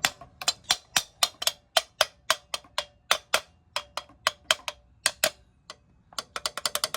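A ratcheting mechanism clicking: sharp metallic clicks at about four a second, pausing briefly, then a quick run of faster clicks near the end.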